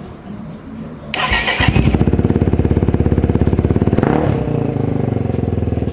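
Megelli 250R's single-cylinder engine started with the starter: a brief crank about a second in, then it catches and settles into a steady idle, with a short blip of revs around four seconds in. This is its first start after a carburettor rebuild, and it runs right.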